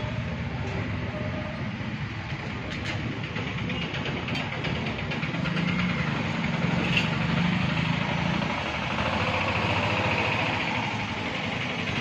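Steady rumble of engines and road traffic, with a few sharp clicks.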